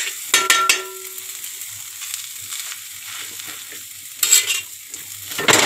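Oil sizzling steadily on a hot tawa under toasting naan and mutton filling, with a metal spatula scraping and knocking the griddle: a ringing clang just after the start, a scrape about four seconds in, and a louder scrape near the end.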